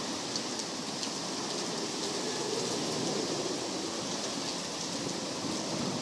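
Hurricane wind and rain: a steady rushing hiss, with a few faint ticks of drops.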